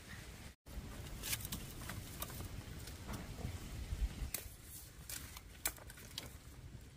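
Scattered light clicks and rustles over a low background rumble, with the sound cutting out completely for a moment about half a second in.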